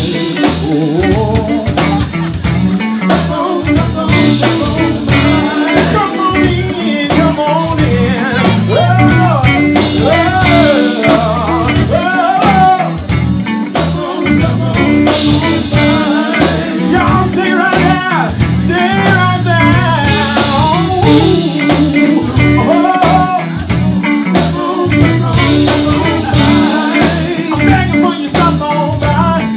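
Live band playing a blues groove: electric guitar, bass guitar, drum kit and keyboard, loud and steady, with bending melodic lines over a regular beat.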